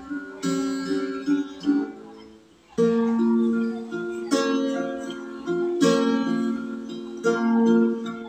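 Small acoustic guitar being fingerpicked: a melody of plucked notes over ringing chords. The notes die away about two and a half seconds in, then a fresh chord is picked and the pattern carries on.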